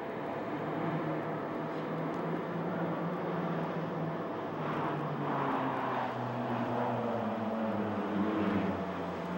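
Engines of a four-plane aerobatic formation flying overhead, a steady drone whose pitch slowly falls in the second half as the aircraft pass.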